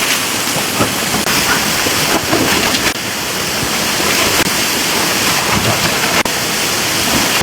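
Steady rush of water, with many small bubbling sounds through it.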